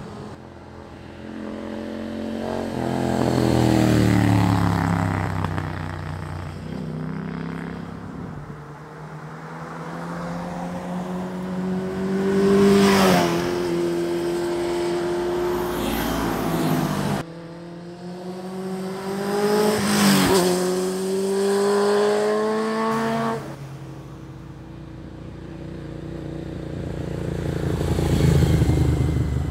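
Sport motorcycles riding past one after another, four pass-bys, each engine note rising to a peak as the bike comes close and dropping in pitch as it goes away. The sound cuts abruptly from one pass to the next twice.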